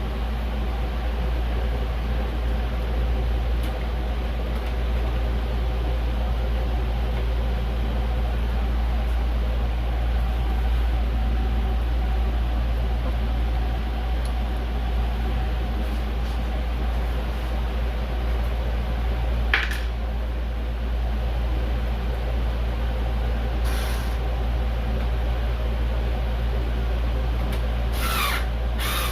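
A steady low mechanical drone with a few faint humming tones above it, broken by a sharp click about two-thirds of the way through and a few short knocks near the end.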